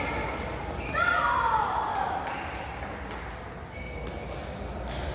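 Badminton rally in a large hall: sharp clicks of rackets hitting the shuttlecock near the start, about a second in and near the end. About a second in comes a loud squeal that falls in pitch over about a second.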